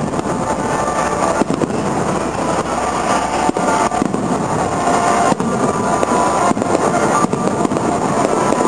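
Fireworks shells bursting, about six sharp bangs spaced a second or two apart, over a steady, dense background din.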